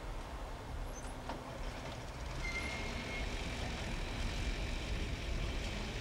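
Heavy machinery engines running steadily at a distance, a low continuous rumble, with a short high tone about two and a half seconds in.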